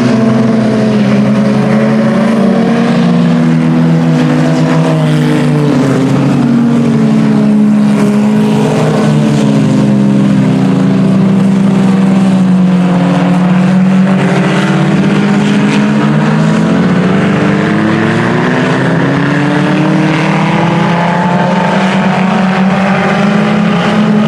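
Several IMCA Sport Compact race cars' four-cylinder engines running hard together, their overlapping notes rising and falling in pitch as the cars accelerate and lift off.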